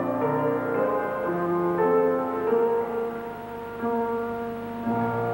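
Slow instrumental music, long held notes moving from one pitch to the next about once a second.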